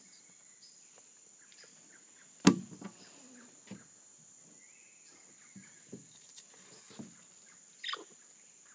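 Steady high-pitched drone of insects, like crickets or cicadas, with one sharp loud knock about two and a half seconds in and a few fainter knocks and rustles scattered after it.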